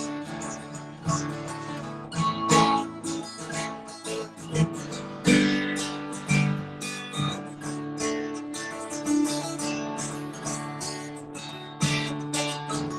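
Acoustic guitar played alone in an instrumental break, strummed and picked chords with single-note runs.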